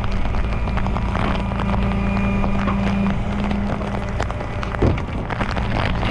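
Tow truck engine running steadily at raised idle to drive the winch through the PTO, with scattered clicks and wind noise on the microphone. A brief rising sound comes about five seconds in.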